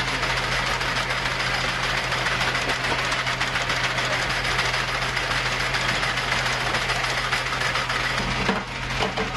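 Ammunition loader of a Phalanx CIWS feeding a belt of 20 mm rounds: a fast, even mechanical rattle over a steady motor hum.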